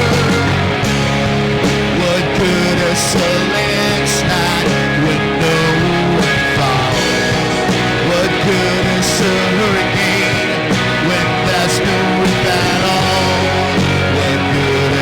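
Rock music in an instrumental passage: a lead electric guitar plays gliding, bent notes over a steady band with drums and bass.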